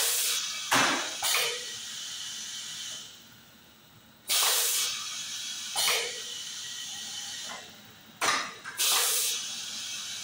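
Pneumatic cylinders and valves of a HOFEN lifting piston depositor cycling, each fill stroke marked by sharp hisses of exhausting compressed air. A lower steady hiss follows each group. The cycle repeats about every four seconds.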